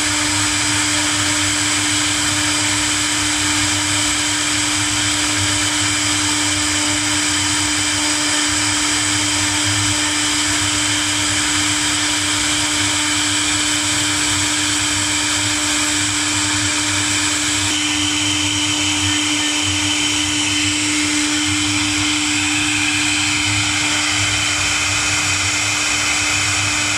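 Two 4.5 kW air-cooled spindles of a double-head CNC router running together while their bits engrave, a steady high-pitched whine over a rushing hiss. A little over halfway through, the higher part of the whine changes pitch.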